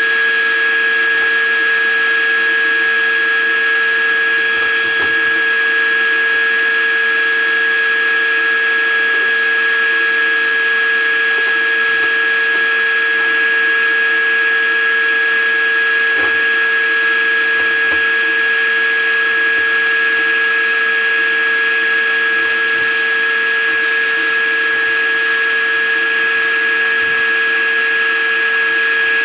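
Sandblasting cabinet in use: a hand-held blast gun sending a steady hiss of abrasive media against a pressed-steel toy part to strip its paint. A constant high whine runs underneath, with a few faint knocks as the part shifts in the gloved hands.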